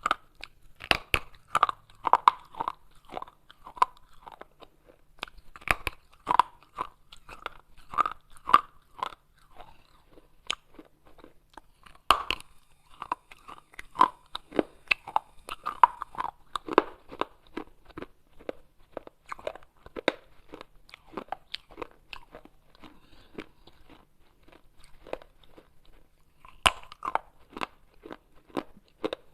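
Pieces of baked clay pot being bitten and chewed: an unbroken run of crisp, irregular crunches, several a second, with a louder crack about twelve seconds in and another near the end.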